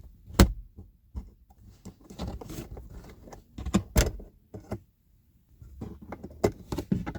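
Plastic trim removal tool prying the dome-shaped auto light sensor out of a car dashboard: irregular sharp plastic clicks and scraping. There is a loud snap about half a second in, and further clusters of clicks in the middle and near the end.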